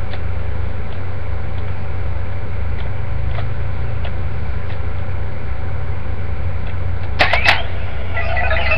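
Steady low electrical hum throughout. About seven seconds in come a few sharp plastic clicks with a short rising electronic chirp as the power card clips into the Gosei Morpher toy, and near the end the toy starts playing its warbling electronic sound effects through its small speaker.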